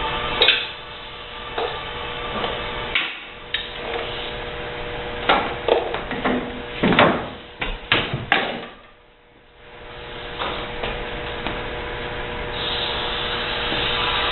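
Irregular knocks, clatter and scraping of hand tools working on dishwasher parts during disassembly, over a steady faint hum.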